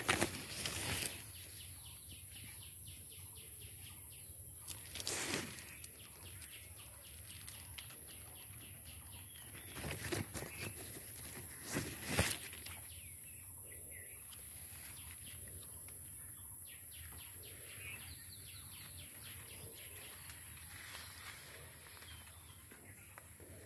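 Outdoor ambience with birds chirping in the background. A few brief rustles and knocks come about a second in, at about five seconds, and again around ten to twelve seconds, as the camera is pushed through the plants.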